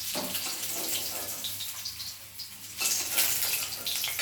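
Pieces of bhetki fish sizzling in hot oil in a frying pan as they finish frying and are lifted out; the sizzle dips briefly and grows louder again about three seconds in.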